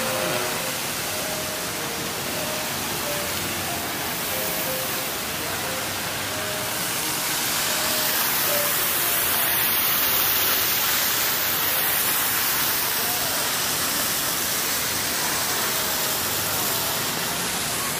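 Water fountain jets splashing: a steady rushing hiss of falling water that swells louder midway as the fountain comes close, with faint music notes underneath.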